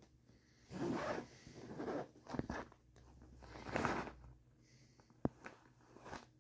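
Zipper on the cloth outer bag of a Eureka High Filtration Commercial upright vacuum being unzipped in three rasping pulls. A few light clicks follow near the end.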